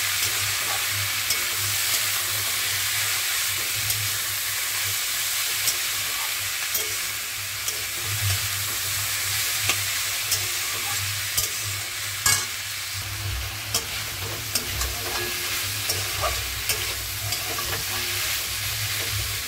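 Sliced potatoes and green tomatoes sizzling in mustard oil in a metal kadai while a metal spatula stirs them, scraping and clicking against the pan now and then, with one louder clack about twelve seconds in.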